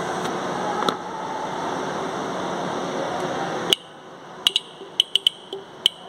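Steady background noise that cuts off abruptly about four seconds in. It is followed by a quick irregular series of short, sharp clicks as a disc horn's supply wire is tapped against the car battery's positive terminal.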